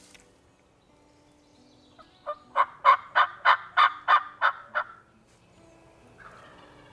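Wild turkey calling: a run of about ten loud, evenly spaced notes, about three a second, lasting near three seconds from about two seconds in.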